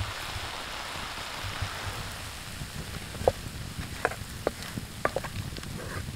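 Tomato sauce sizzling and bubbling in a skillet over campfire coals. About halfway through, a wooden spatula starts stirring it, adding a scatter of sharp clicks and pops over the hiss.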